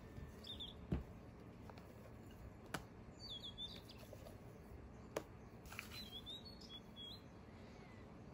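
Quiet handling of glass mixing bowls and a spatula while meringue is scraped into batter: a few light taps and knocks on glass, with faint, short, high squeaky chirps now and then.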